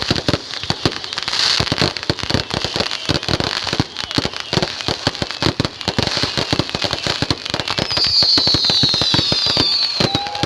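Fireworks going off in rapid succession, a dense run of bangs and crackles, with high falling whistles near the end.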